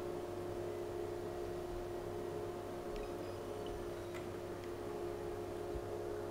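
Steady faint electrical hum with a few steady tones, with a couple of faint ticks about three and four seconds in, while the docked netbook hibernates.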